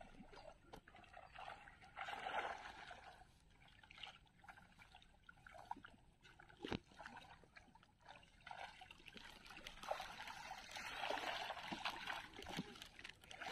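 Pond water splashing and sloshing as men wade and haul a seine net through it, coming and going in patches, with one sharp click about halfway through.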